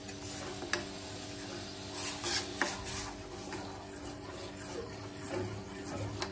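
A long metal spoon stirring thickening milk in a stainless steel pot, clinking and scraping against the pot's sides and bottom every so often.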